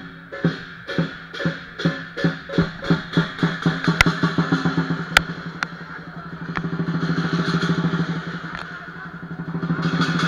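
Lion dance drum and cymbals: steady beats that speed up over the first few seconds into a fast continuous roll, which swells twice. Two sharp cracks ring out about four and five seconds in.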